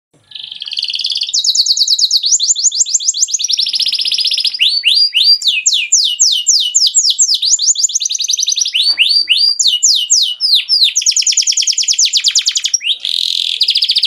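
Canary singing a continuous song of fast trills, each a rapid run of repeated notes. Around the middle it switches to slower, falling whistled notes, then returns to fast trills near the end.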